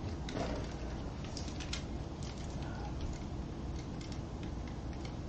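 Faint steady outdoor background noise with scattered small clicks and rustles.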